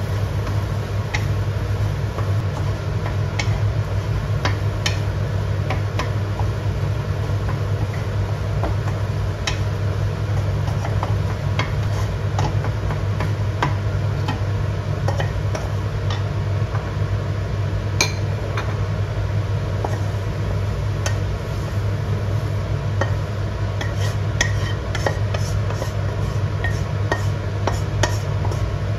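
Wooden spatula stirring, scraping and tapping against a nonstick wok while eggs are scrambled, giving scattered clicks and knocks that come thicker near the end as the eggs are scooped out. A steady low hum runs underneath.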